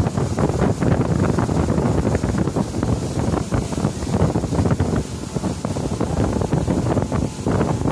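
Wind buffeting the microphone on a motorboat under way, mixed with the rush of the boat's churning wake.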